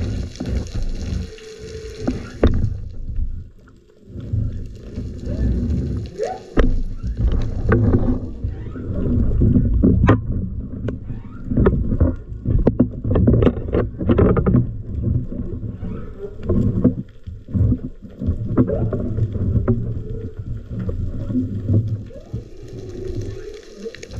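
Muffled underwater noise from a camera mounted on a speargun: a low rumble of water and movement, with a run of sharp knocks and clicks in the middle as a speared fish is pulled in along the shaft and grabbed.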